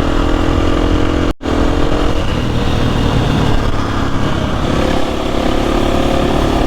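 Trail motorcycle engine running steadily under way, heard from the rider's own bike with low rumble throughout. The sound cuts out completely for a split second about a second and a half in.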